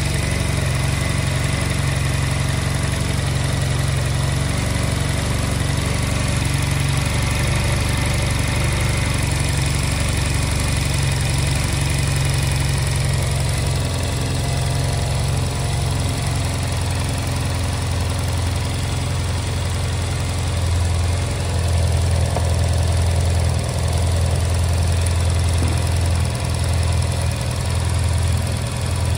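Honda Silver Wing scooter engine idling steadily, swelling slightly in loudness now and then. The idle speed and air screws are being set.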